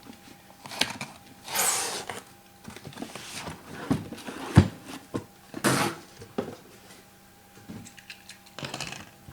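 Cardboard boxes and packaging of a sealed trading-card case being handled and opened: three rustling, tearing swishes, with sharp knocks and clicks of boxes and cardboard against a table between them.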